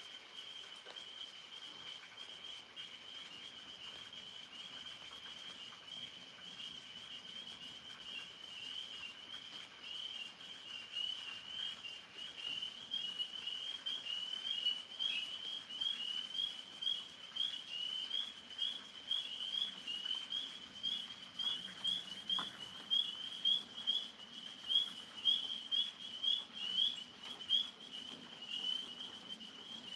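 Chorus of tree frogs calling at night: a high, steady shrill of overlapping calls with single loud peeps standing out, which grow louder and come about one to two a second in the second half.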